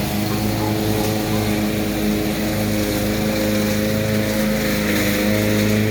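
A small engine drones steadily at a constant speed, with no cranking or starting to be heard.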